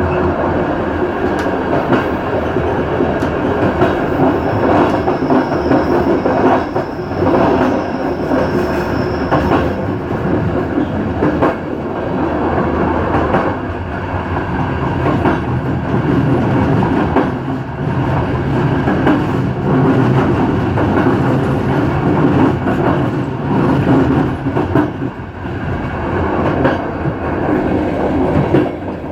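Passenger train running along the track, its wheels clacking over rail joints, with a thin wheel squeal from about five to nine seconds in.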